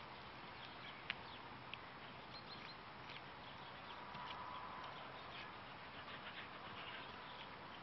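Quiet outdoor field ambience with faint bird chirps scattered throughout, and a sharp knock about a second in followed by a weaker one.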